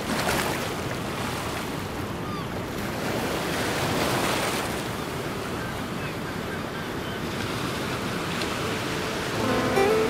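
Ocean surf: a steady rushing hiss of waves that swells louder twice, near the start and about four seconds in. Acoustic guitar music comes in near the end.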